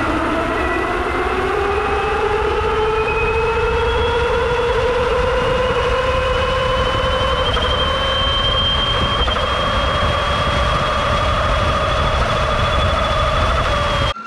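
The 12 kW hub motor of a 72-volt Stealth Bomber electric bike whines under full throttle. The whine climbs in pitch as the bike accelerates and levels off in the second half as it tops out, which the rider takes for a speed limiter in the controller's programming. Wind rushes over the microphone.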